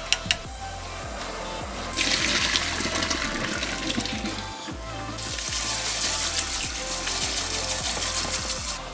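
Tap water running over konjac noodles in a perforated metal colander, in two spells: from about two seconds in to about four and a half seconds, and again from about five seconds until just before the end. A few sharp clicks at the start, with background music throughout.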